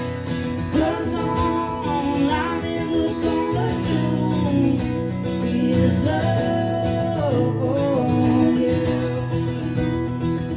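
Live acoustic country song: strummed acoustic guitar chords, with a male voice singing long held notes that slide in pitch, about a second in and again around six seconds.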